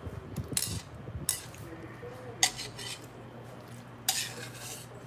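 Utensils clinking and scraping against a bowl while noodles are eaten, four times, the third the sharpest and the last a longer scrape, over a steady low hum.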